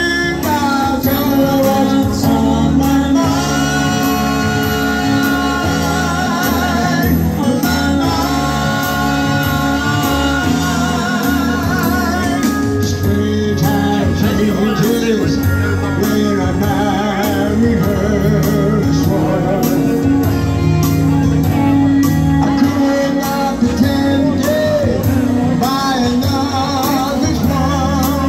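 Live band playing a song: singing with vibrato over a Roland BK-5 backing keyboard's accompaniment, with a steady drum beat, heard through a PA system.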